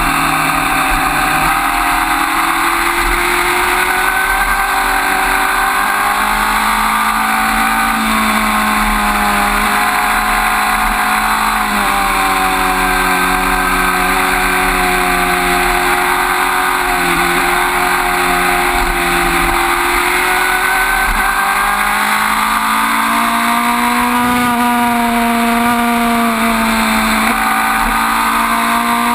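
Suzuki GSX-R1000 K5 inline-four sport bike engine at riding speed, its revs rising and falling through the bends, over steady wind rush.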